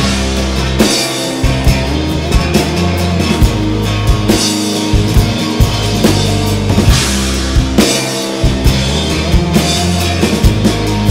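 Live band playing an instrumental passage: an acoustic guitar strummed hard over bass guitar and a drum kit keeping a steady beat, with no singing.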